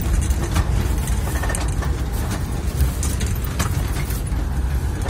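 Steady low rumble of a motor vehicle running, with frequent small rattles and clicks.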